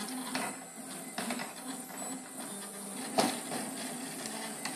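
Stepper motors of a compact RepRap-style 3D printer whining in short runs at shifting pitches as the axes move, with a few clicks and a sharper knock about three seconds in.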